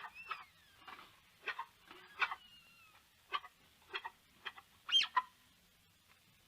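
Small birds chirping: a dozen or so short, sharp chirps at uneven spacing, with a few thin whistled glides in between and the loudest chirp about five seconds in.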